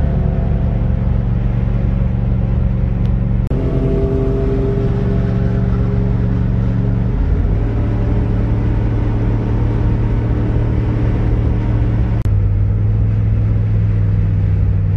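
Pickup truck engine running steadily at cruising speed while driving. The hum drops a little in pitch about seven seconds in. The sound breaks off and resumes abruptly twice, at about three and a half and twelve seconds, each time at a slightly different pitch.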